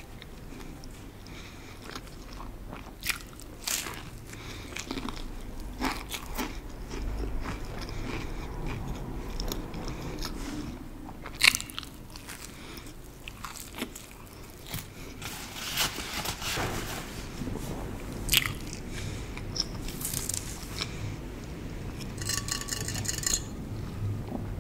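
Close-miked eating: biting into and chewing cheese-stuffed bread with a baked crust, with scattered crunches and crackles. The loudest, crispest bite comes about halfway through.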